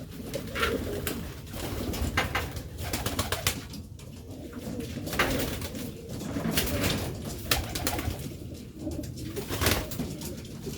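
Domestic pigeons cooing in a cage, with sharp clicks and scuffs every second or two. The birds are in courtship, the male driving the hen (giring).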